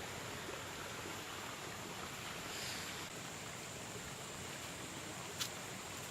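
Steady outdoor background hiss, even and unchanging, with a single faint click about five and a half seconds in.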